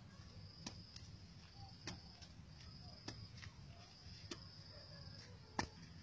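Hand hoe chopping into hard, dry soil: about five sharp strikes at an even pace, roughly one every second and a quarter, the last near the end the loudest.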